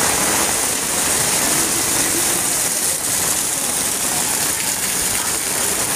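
Torrential monsoon rain pouring steadily, a loud, even hiss of heavy rain falling on the paved lane and parked cars.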